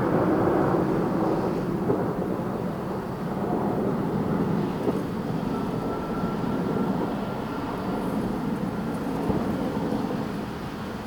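Many fireworks going off at a distance, their bangs merging into a steady, thunder-like rumble.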